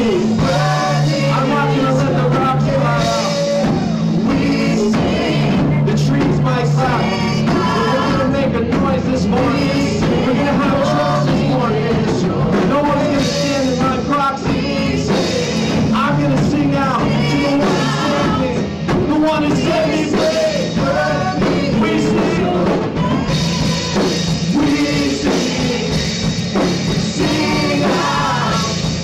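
A live worship band playing a song: several voices singing together over keyboard and band accompaniment.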